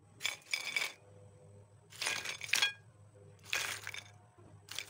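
Crisp deep-fried rice-flour snack pieces crunching, in four short bursts about a second and a half apart.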